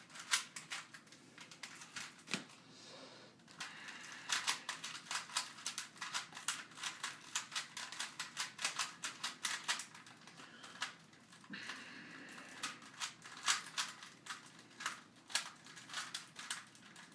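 Rubik's cube being twisted fast by hand: rapid plastic clicks and clacks of the layers turning, several a second, with two brief pauses, about three seconds in and again around ten seconds.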